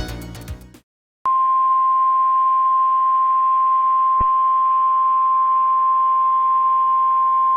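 Music fades out, and after a brief silence a NOAA Weather Radio warning alarm tone starts: one steady, loud, single-pitch tone over faint radio hiss and hum, with a short thump about four seconds in. It is the alert tone that signals a warning broadcast is about to follow.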